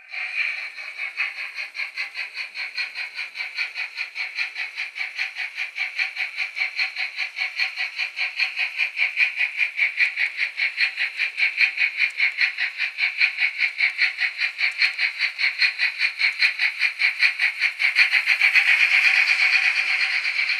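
H0-scale model steam locomotive's sound decoder chuffing in an even, rapid rhythm as the train runs, with a hiss in each chuff, growing louder toward the end as it passes close.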